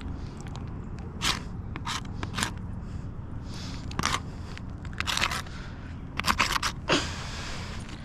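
A run of short, gritty scrapes and crunches on asphalt roof shingles, irregularly spaced, with a quick cluster of them near the end.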